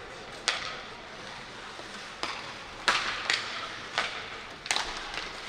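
Ice hockey stick and puck clacks in play on the rink: about six sharp, separate knocks over a few seconds, over the steady hiss of the arena.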